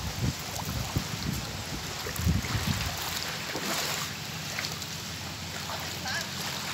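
Steady rush of floodwater, with low gusts of wind buffeting the phone's microphone, strongest about two seconds in.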